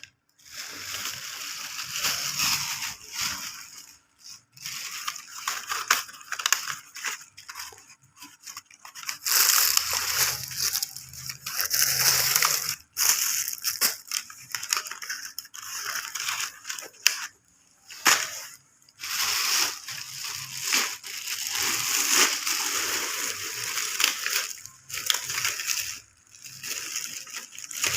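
Plastic packaging crinkling and rustling as it is handled, in irregular spells with short pauses.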